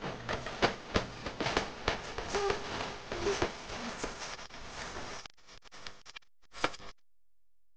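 Footsteps and clothing rustle of a group of people walking off together, a run of scattered sharp clicks and scuffs. The sound thins out about five seconds in and cuts off to silence near the end.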